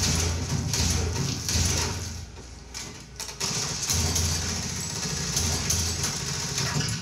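Bass-heavy action-movie soundtrack: a deep low rumble that swells and eases every second or so under a dense noisy hiss, dipping briefly about two and a half seconds in.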